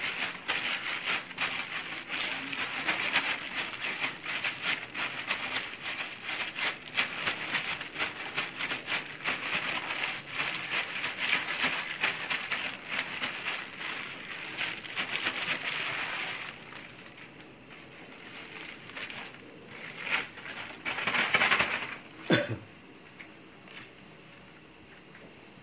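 Thin clear plastic sheet crinkling and rustling as hands press and handle it around a block of pounded glutinous rice dough. The crinkling is dense and continuous for about sixteen seconds, then drops to a few short rustles and a sharp click.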